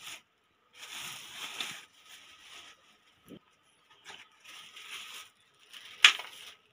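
Clear plastic racket bag rustling and crinkling in bursts as a badminton racket is pulled out of it, with one sharp, loud crack near the end.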